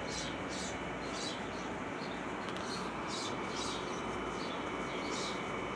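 Outdoor background: a steady hiss of ambient noise with short, high chirps repeating every half second or so.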